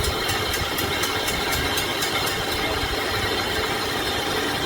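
Workshop lathe running steadily, with a light, high tick about three times a second that stops about two and a half seconds in.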